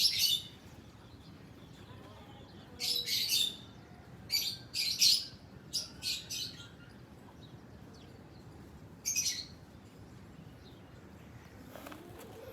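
Bird chirping in short, high-pitched bursts, several times with quiet gaps between.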